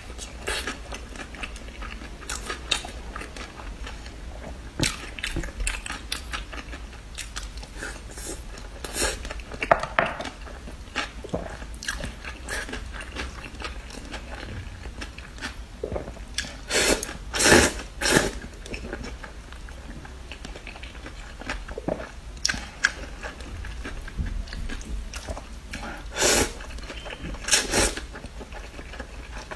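Close-up eating sounds: a woman chewing and smacking food, with several loud noodle slurps, the loudest about halfway through and twice more near the end.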